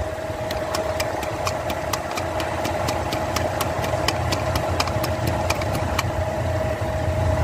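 Car engine idling with the air conditioning running during a refrigerant recharge from a can: a steady low rumble with a constant whine over it. Sharp, even ticking, about four a second, runs over it and stops about a second before the end.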